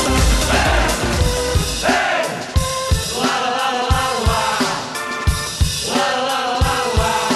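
Pop music with a drum beat and a wordless melody. The heavy dance bass drops away about two seconds in, leaving spaced drum hits under the tune.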